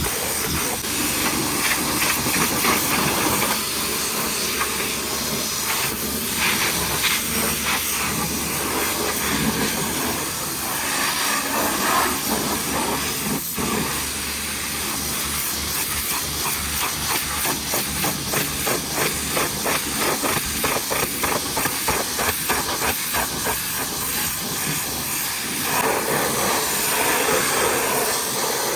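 High-pressure washer jet spraying water against a truck, a steady loud hiss.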